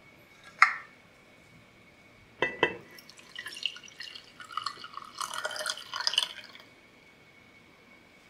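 Coffee poured from a glass carafe into a ceramic mug: a sharp clink about half a second in and two knocks a couple of seconds in, then the pour splashes into the cup for about three and a half seconds and stops.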